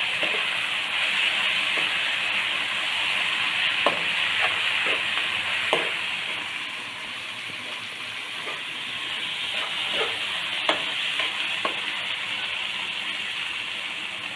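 Onions, tomatoes, green chillies and whole spices sizzling steadily in coconut oil in a nonstick wok, with a spatula stirring and now and then clicking against the pan.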